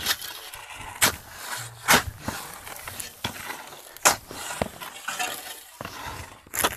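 Metal shovel blade chopping and scraping into dry, hard-packed earth. It strikes sharply every second or two, with the grate of soil between strikes.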